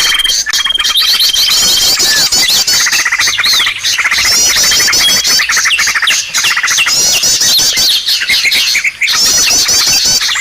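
Bird-luring call recording: a loud, dense chorus of many small birds chirping at once, with fast repeated trill series and short sliding calls overlapping throughout.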